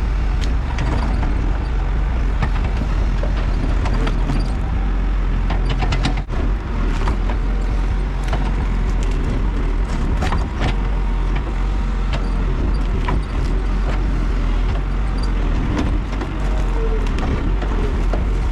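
Heavy diesel equipment engine running steadily under load, with irregular clanks and knocks from debris being handled.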